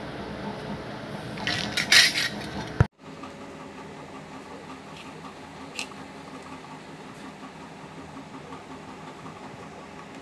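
A brief metallic clatter about two seconds in, ending in a sharp click and an abrupt cut, over a steady background hum. After the cut the hum carries on more quietly, with a couple of faint light taps.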